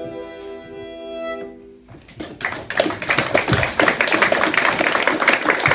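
Accordion and fiddles holding the final chord of a Swedish folk tune, which dies away; about two seconds in, the audience starts applauding with rapid, loud clapping.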